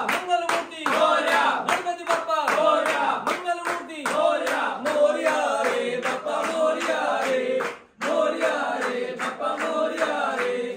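A group of men and women chanting a Ganpati devotional chant together in unison, keeping time with steady hand-clapping. The sound drops out for an instant about eight seconds in, then goes on.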